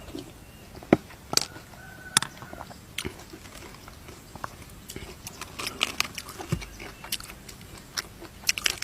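A person eating cooked field snails close to the microphone: chewing, with irregular sharp mouth clicks and smacks that come more often near the end.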